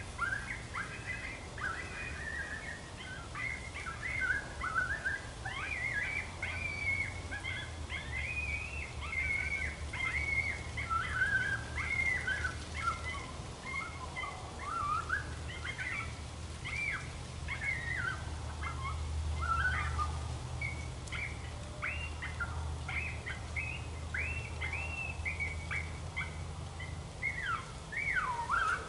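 Primos Dogg Catcher electronic predator call playing a rapid, unbroken string of high, sweeping yips and squeals to draw in coyotes.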